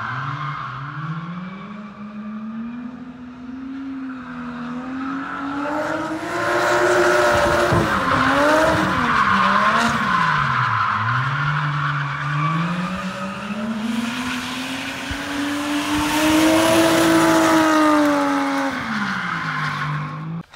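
1JZ-swapped Mazda RX-7 drifting: its straight-six engine revs up and down repeatedly while the tires squeal and skid. It is loudest in two long slides, one about six seconds in and one about fourteen seconds in.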